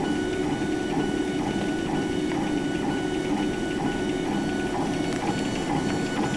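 Laser engraving machine working: the drive motors move the laser head back and forth along the gantry in quick repeated passes, about three a second, over a steady machine hum.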